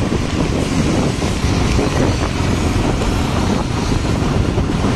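Wind rushing over the microphone of a moving motorcycle, with the bike's engine and the tyres on a wet road underneath, a steady loud noise throughout.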